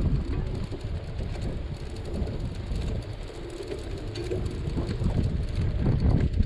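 Wind noise on the microphone of a bicycle in motion, a low rumbling rush that eases off in the middle and builds again near the end.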